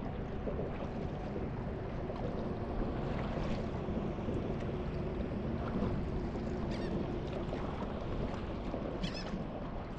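Water lapping and splashing close by as a paddleboard glides over calm sea, with a few brief sloshes about three and a half, seven and nine seconds in, over a low steady rumble.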